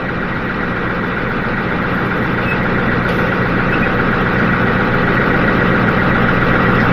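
Diesel off-road wrecker truck driving on a rough dirt road, heard from inside the cab: steady engine and road noise with a faint steady whine, slowly getting louder.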